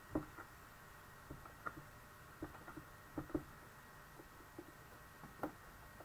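Faint, irregular light taps of an ink pad being dabbed onto a rubber stamp to ink it.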